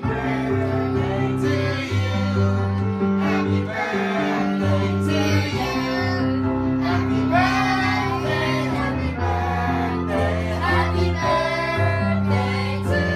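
A group of children and adults singing together into a microphone, child and women's voices to the fore, over a keyboard accompaniment of steady sustained notes.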